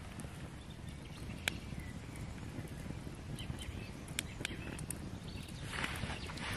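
Wood fire of a Swedish log torch and campfire burning and crackling, with a few sharp pops about one and a half and four seconds in over a low steady rumble. A hissing swell builds near the end.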